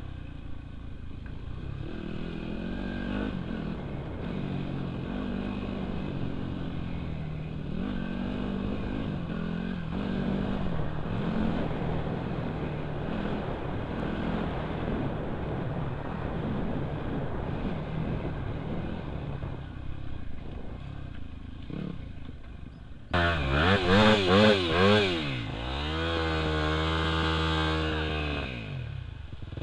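Off-road dirt bike engine running at changing revs along a bush trail, dull-sounding at first. About three-quarters through the sound turns abruptly louder and clearer, and the engine revs up and down sharply several times in quick succession.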